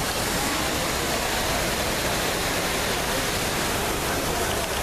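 Steady rushing of water falling down the walls of the 9/11 Memorial reflecting pools: an even, unbroken roar of cascading water.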